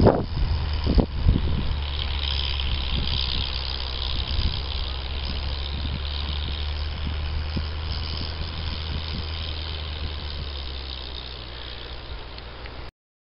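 Wind buffeting the microphone in a few gusts, then a steady low rumble with a high hiss over it that slowly fades and cuts off suddenly near the end.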